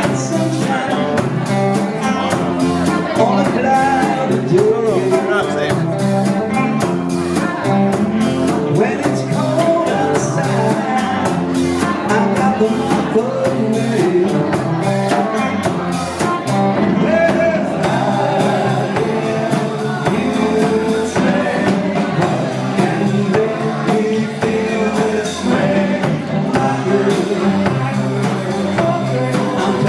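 Live rock and roll band playing a song with a singer.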